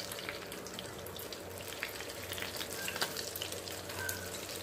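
Egg omelette sizzling in hot oil in a frying pan, a steady crackling hiss. A few clicks and scrapes come from the wooden spatula and turner as it is folded over, the sharpest about three seconds in.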